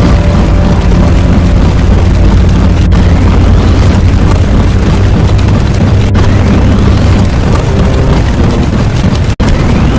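Loud, continuous, rumbling explosion-like sound effect, dense and distorted, broken by split-second cuts about three, six and nine seconds in.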